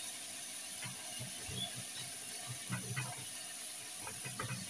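Kitchen knife cutting through a whole fried tilapia on a ceramic plate: a few faint, irregular scraping and crunching sounds as the blade goes through the crisp skin. A steady hiss runs underneath.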